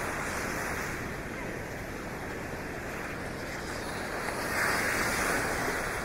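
Ocean surf: a steady wash of waves on the shore, with one wave breaking louder about four and a half seconds in.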